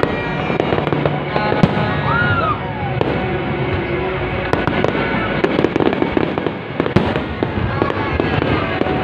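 Aerial fireworks display going off continuously: a dense stream of sharp bangs and crackling shell bursts.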